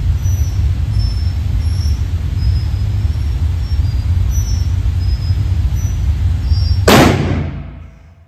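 A steady low rumble, then about seven seconds in a single .44 Magnum revolver shot, the loudest sound, with a short echo in an indoor range, after which the rumble falls away.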